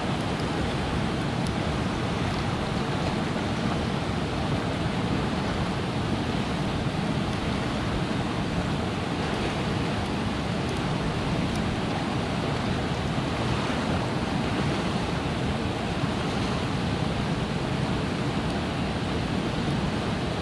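Whitewater river rapids rushing steadily, with a few faint clicks here and there.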